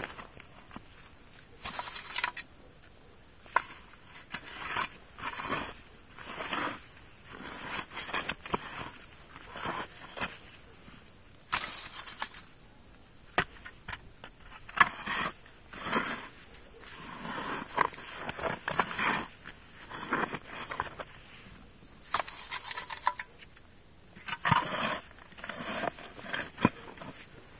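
Hand auger's spiral steel blade scraping and crunching through soil as it is turned into the ground, in repeated gritty bursts with the turns, with occasional sharp clicks.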